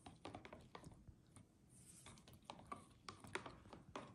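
Faint, irregular clicks and light scrapes of a plastic spoon stirring water in a plastic tub.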